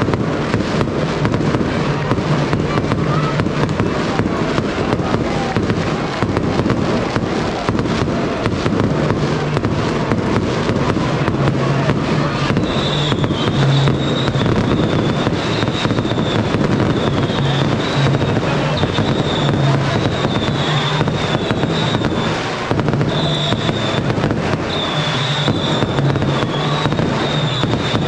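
Fireworks crackling without a break, a dense run of sharp cracks, with a steady high whistling tone joining about halfway through.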